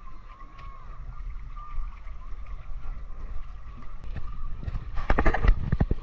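Wooden paddle stirring the water as a round basket boat is paddled, over a low rumble of wind on the microphone. About five seconds in comes a quick run of sharp knocks and splashes.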